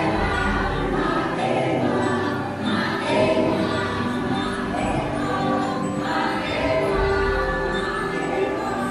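Music with a choir singing long, held notes.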